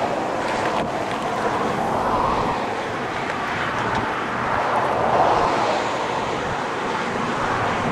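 Wind rushing steadily across the microphone, swelling and easing slightly.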